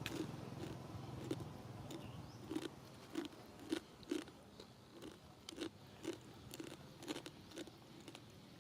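A monkey chewing something crunchy, with short crunches at a steady pace of about two a second.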